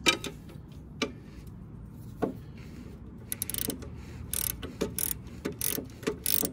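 Ratchet wrench clicking while running a drain plug back into a Harley-Davidson's oil pan: three single clicks spaced about a second apart, then from about halfway fast runs of pawl clicks as the handle is swung back and forth.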